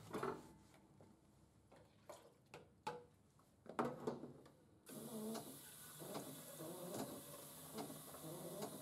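Faint handling sounds: a few light knocks and clicks as a plastic sample container is set under the dispenser and moved about. Partway through, a faint, irregular mechanical rattle and ticking sets in and continues.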